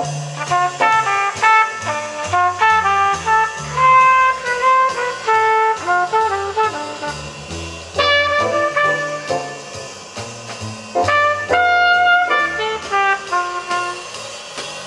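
Brass-led jazz with a bass line, played from a recording through Dynaco A-10 bookshelf speakers driven by a Technics SE-A100 power amplifier, picked up off the speakers in the room.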